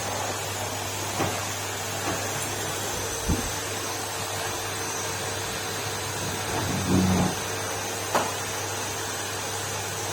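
Numatic Henry cylinder vacuum cleaner running steadily with a constant hum and hiss. A few short knocks and a brief bump break in over it.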